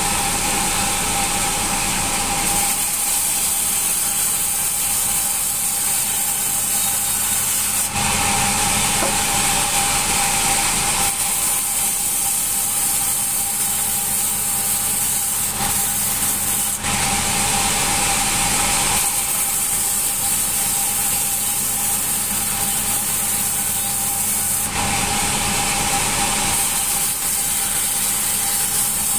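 Sawmill band saw running and cutting hard acacia wood with a blade that has not been filed and is dull. A steady whine and rasp, growing louder and harsher for a few seconds roughly every eight seconds.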